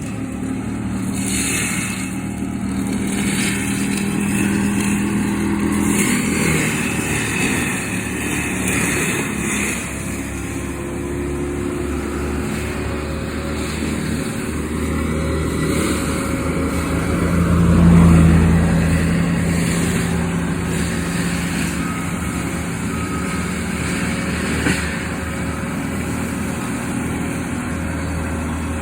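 Heavy engine of brush-clearing machinery running under load, clearing heavy growth from under power lines. The engine note rises and falls, swelling to its loudest a little past the middle.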